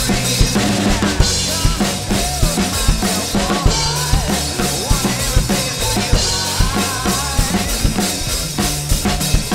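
Acoustic drum kit played in a steady rock groove, with kick, snare and Meinl cymbals, over a recorded backing of electric guitar and bass with no vocals.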